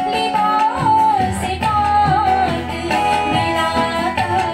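A woman singing a song in long held, wavering notes into a microphone, accompanied by acoustic guitar and keyboard.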